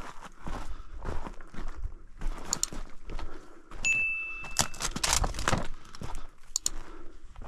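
Footsteps of a person walking over rough ground, a steady run of crunching steps, with a few brief metallic clinks of carried gear. A single steady high whistle-like tone lasts about a second near the middle.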